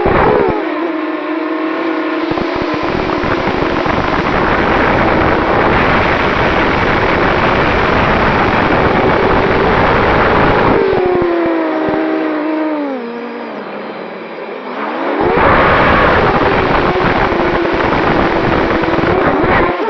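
Small FPV racing quadcopter's brushless motors and propellers whining and buzzing in flight, the pitch rising and falling with the throttle. The pitch drops and the sound eases off from about 11 to 14 seconds, then surges again as the throttle is punched back up.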